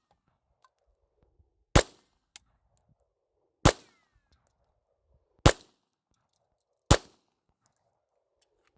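Smith & Wesson M&P9 9mm pistol firing Federal Premium HST Micro hollow-point rounds, four single shots spaced about a second and a half to two seconds apart.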